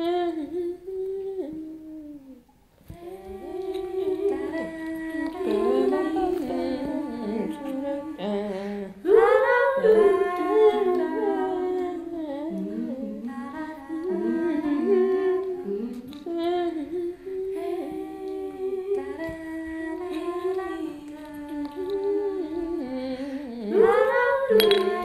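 Several voices humming and singing without words, overlapping, with pitches that slide and bend. The sound starts suddenly, drops out briefly about two seconds in, and swells again about nine seconds in and near the end.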